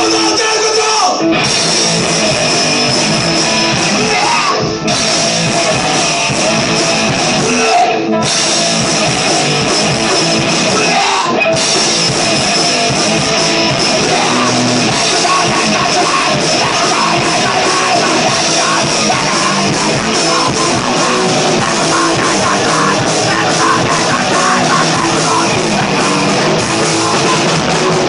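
Punk rock band playing live: loud distorted electric guitar and a Ludwig drum kit, with lead vocals sung into the microphone.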